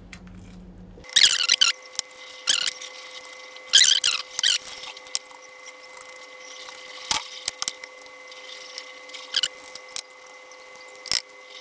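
Wire whisk scraping and squeaking against the sides of a bowl in irregular bursts while beating a thin batter of wheat flour, mashed potato and water.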